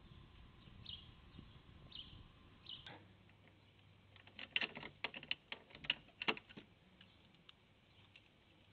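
Keys and a padlock clicking and rattling against a metal door hasp as the door is unlocked, a dense flurry of sharp clicks lasting about two seconds past the middle. Before that, a bird chirps about once a second.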